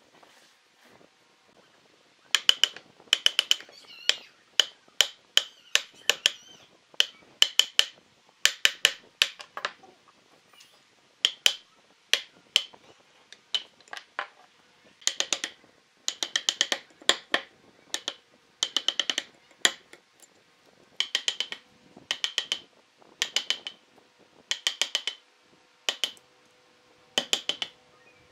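Wooden mallet striking a steel chisel to chop blocks out of the end of a log: quick runs of sharp taps with short pauses between, over and over.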